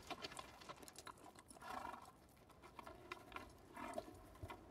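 Faint hoof clops and shuffling from several horses standing with riders on their backs, with scattered clicks thickest in the first two seconds.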